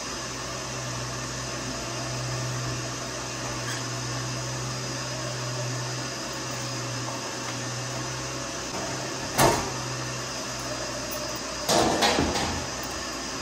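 Steady electric motor hum with rushing air, joined by one sharp knock about nine seconds in and a short clatter of knocks near the end.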